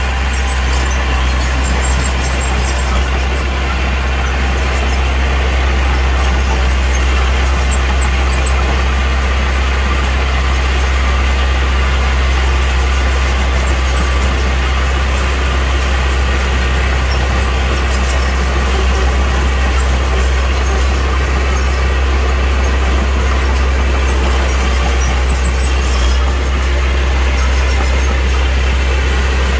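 Heavy construction machine's diesel engine running steadily with a deep, even hum.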